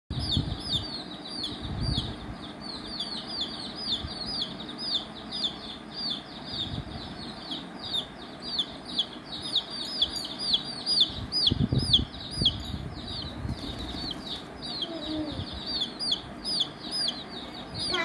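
Young chicks peeping without pause, a fast run of short, high chirps at about four a second, with a few low thumps among them.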